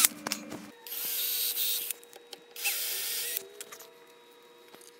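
Cordless drill winding down just after boring a pilot hole up into the wooden bench top, then two short bursts of high hissing, each about a second long, followed by a few faint clicks.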